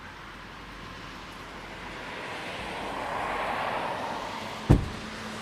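Vehicle noise swelling and easing off, then a single sharp bang near the end, the loudest thing heard.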